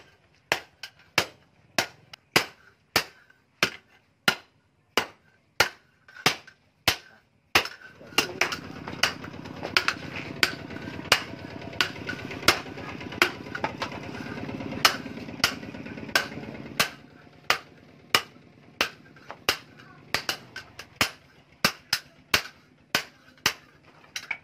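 Hand hammer striking a red-hot chainsaw bar on an iron anvil post: steady blows a bit under two a second, each ringing briefly. From about eight seconds in, a steady rushing noise runs under the blows for about nine seconds.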